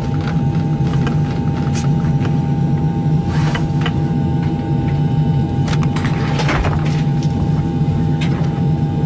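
Steady drone of an airliner cabin, with a few faint clicks and rustles over it.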